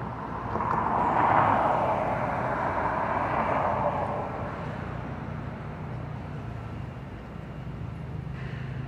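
Street traffic at an intersection: a vehicle passes about a second in, its tyre and engine noise swelling and fading within about three seconds, over a steady low hum of traffic.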